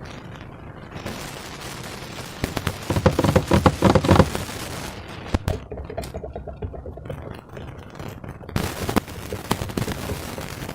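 Slime being squished and worked by hand, with a run of rapid crackling pops and squelches, densest about three to four seconds in.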